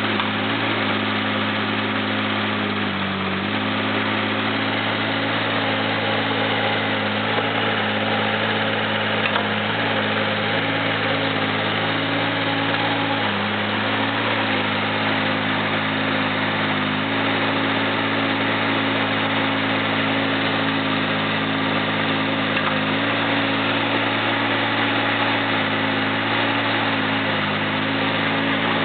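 Caterpillar 301.5 mini excavator's diesel engine running steadily while the boom and bucket are worked. Its note dips and shifts briefly a few times as the arm moves.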